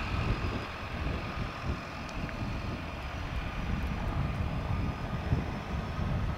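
de Havilland Canada DHC-6 Twin Otter's twin Pratt & Whitney PT6A turboprops running at taxi power: a steady high turbine whine over a low rumble.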